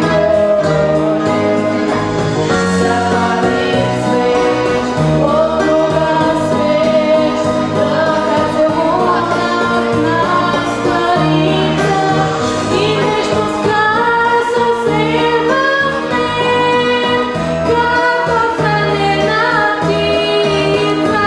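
A girl singing solo into a microphone over instrumental accompaniment with a steady bass line.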